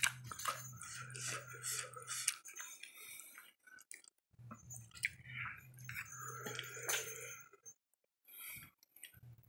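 Soft wet squishing and small clicks of sauce-coated instant noodles being stirred and lifted with chopsticks and a metal spoon on a plate, over a faint low hum that comes and goes.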